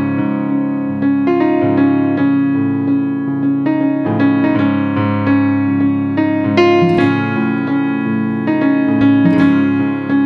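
Background music: an electric-piano tune with sustained chords that change every second or so.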